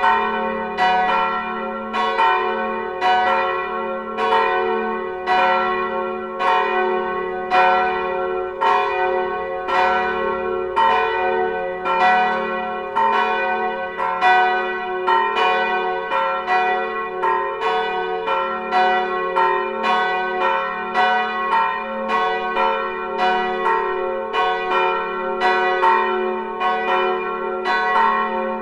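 Full peal of three swinging church bells, tuned F-sharp and A-sharp with the third unknown, all ringing together. Their strikes overlap in a steady, continuous pattern of about two a second, each note ringing on under the next.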